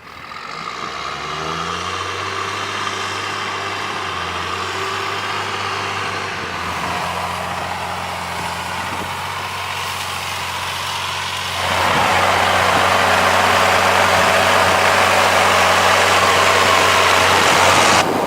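John Deere 7710 tractor's six-cylinder turbo diesel engine running at a steady speed. It fades in at the start and gets suddenly louder about twelve seconds in.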